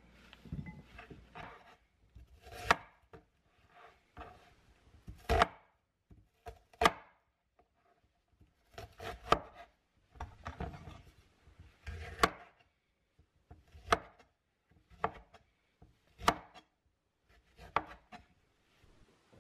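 Cleaver and kitchen knife chopping vegetables on a wooden cutting board. Single sharp knocks of the blade hitting the board come every second or two, with softer handling sounds between them.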